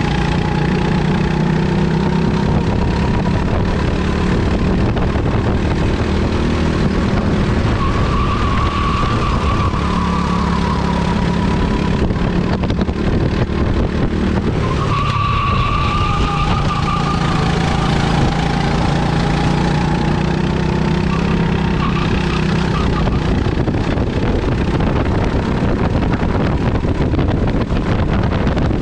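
Bizkart rental kart's engine running at speed, its note rising and falling with the throttle through the corners and briefly dropping away about fourteen seconds in before climbing again.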